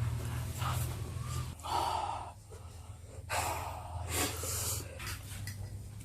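A person breathing hard: a few short, noisy breaths and snorts.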